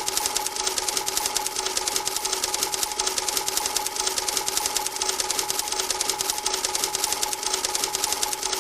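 A small machine running steadily with rapid, even clicking and a constant hum.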